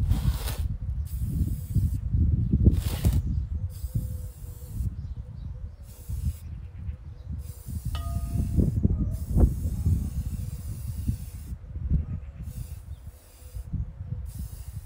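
Aerosol spray paint can hissing in repeated short bursts as paint is sprayed, over a steady low rumble of wind on the microphone.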